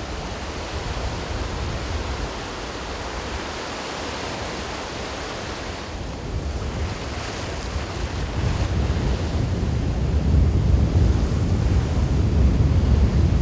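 Ocean surf breaking and washing up a sandy beach, a steady rushing wash, with wind rumbling on the microphone that grows louder in the second half.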